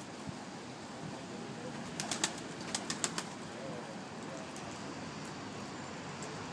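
Domestic pigeons moving about on concrete: two quick clusters of sharp clicks, about two and three seconds in, over a steady background hiss.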